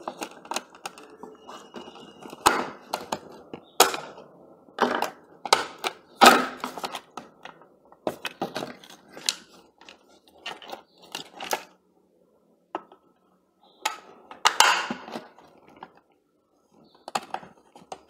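Hands working a screwdriver in the screws of a white plastic hand mixer's housing and handling the casing: irregular clicks, scrapes and knocks of plastic and metal tools against each other and the table, with a few sharper knocks and a brief lull partway through.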